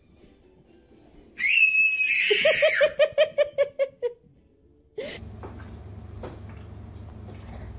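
A young child gives a high squeal, then laughs in a quick run of giggles that stops after about two seconds. After a cut, a steady low room hum with a few faint taps.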